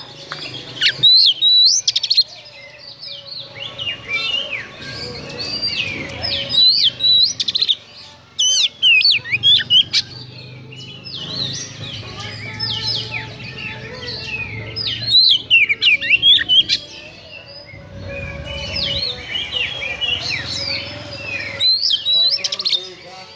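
Oriental magpie-robin singing a rough-toned song of fast, swooping whistled notes, delivered in bouts with short pauses between them.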